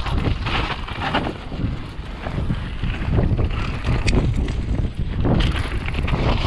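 Mountain bike descending a bumpy dirt trail at speed: wind rushing over the camera microphone, with tyre rumble and rattling knocks as the bike goes over bumps.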